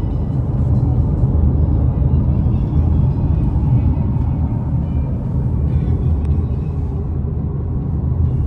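Steady low rumble of road and engine noise inside a moving car's cabin, heard from the back seat.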